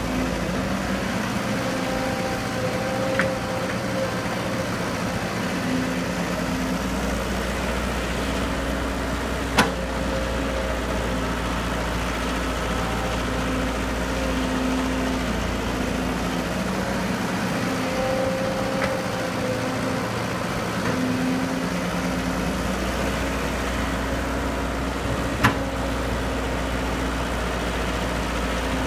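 Excavator's diesel engine running steadily, its note shifting as it works, with two sharp knocks about ten and twenty-five seconds in and a fainter one near three seconds.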